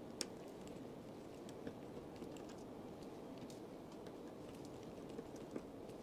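Faint, irregular small clicks and ticks of a precision screwdriver turning out the tiny screws over a Samsung Galaxy Note 10+'s loudspeaker and charge controller board, a few clicks a second or less, over a low steady hiss.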